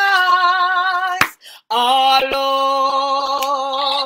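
A woman singing unaccompanied, holding a long sustained note. About a second in, there is a single sharp click and a brief break, then she holds a lower note with a wavering vibrato.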